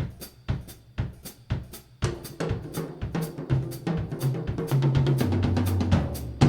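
Background music: a drum-kit beat that starts abruptly, with a bass line coming in about two seconds in.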